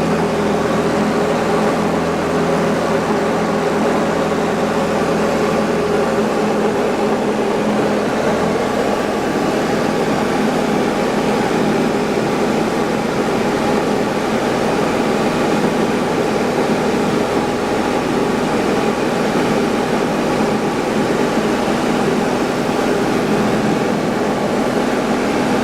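Diamond DA20-C1's four-cylinder Continental IO-240 engine and propeller running at a steady drone in flight. A low tone in the drone drops away about six seconds in.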